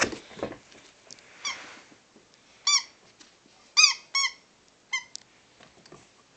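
A Boston Terrier puppy chewing a squeaky dog toy, making it squeak about five times in short squeaks that rise and fall in pitch, two close together about four seconds in.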